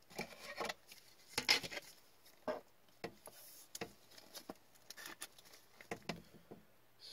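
Trading card being slid into a clear rigid plastic card holder by hands in rubber gloves: scattered soft plastic clicks and short rubbing scrapes, the loudest about a second and a half in.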